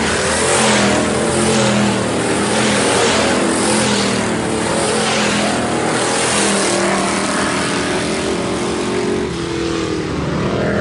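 Several IMCA Hobby Stock race cars running at speed on a dirt oval, their engines rising and falling in pitch as the cars pass close by, the sound easing a little near the end.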